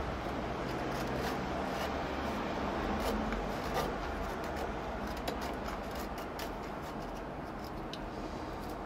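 Knife blade shaving thin curls off a stick of very dry wood to make a feather stick: a series of short, light scraping strokes over a steady low background hum.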